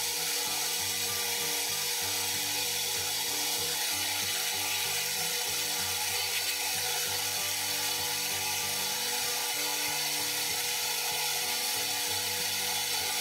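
Countertop blender motor running steadily, blending a liquid cream mixture of condensed milk, cream and gelatin.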